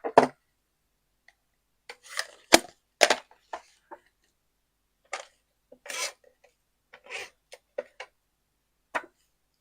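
Scattered clicks, taps and short rubbing sounds of craft supplies being handled on a tabletop while ink is put on a card, with quiet gaps between them.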